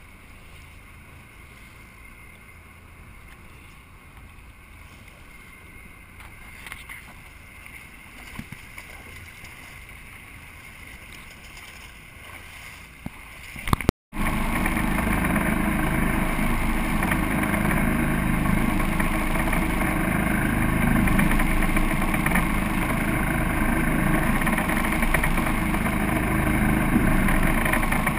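Sportfishing boat at sea. A quiet wash of water against the hull with a few faint knocks gives way, about halfway through, to a couple of sharp loud knocks. Then a much louder steady rush of wind, water and boat engine noise.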